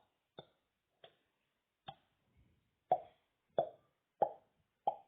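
Finger-in-cheek mouth pops: a finger is pulled out along the inside of the cheek so it snaps free with a hollow pop, made about seven times. The first three are faint, and the last four, coming about every two-thirds of a second, are louder.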